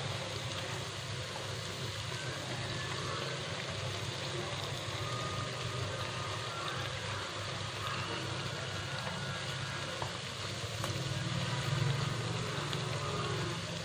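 Battered banana-blossom fritters deep-frying in hot oil, a steady sizzle, with a steady low hum underneath. Chopsticks turning the fritters give an occasional light click.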